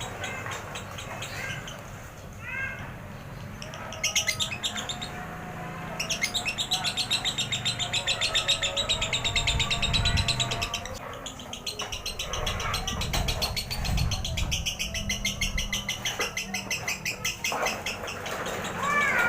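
Lovebird singing its long chattering song (ngekek): a few short chirps, then two long runs of very fast repeated high notes, each lasting several seconds.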